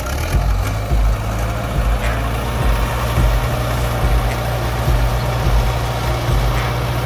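Engine of heavy earthmoving machinery running steadily with a low, even drone.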